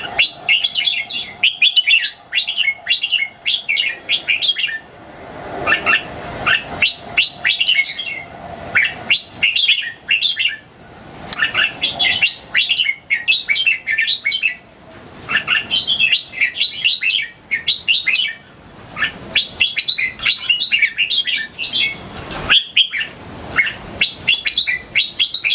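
Young red-whiskered bulbul singing: phrases of quick chirping, whistled notes, each lasting a second or two, repeated with short pauses between.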